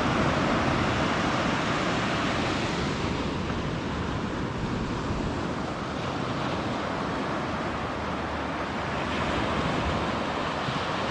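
Sea waves washing ashore, a steady rushing that eases and swells again, with wind on the microphone.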